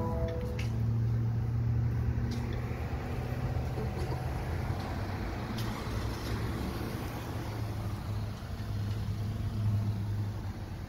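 Car engine idling: a steady low hum with no change in speed.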